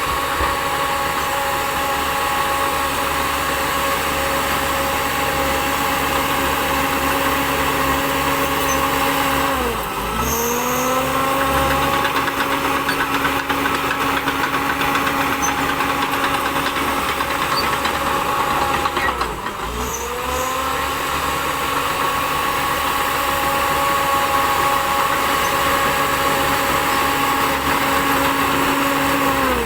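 Shantui DH10B2 mini bulldozer's diesel engine running steadily at working speed. About every ten seconds, around 10 s and 19 s in and again at the end, its pitch dips sharply and climbs back as the engine is briefly pulled down.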